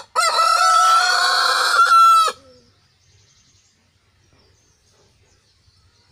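Rooster crowing once: a short opening note, then a long held note that stops suddenly about two and a half seconds in.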